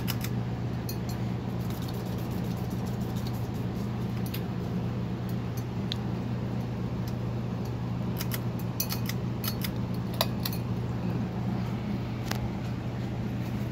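Encon Monarch 52-inch ceiling fan running with a steady low motor hum, with scattered light ticks and clicks, a few close together a little past the middle.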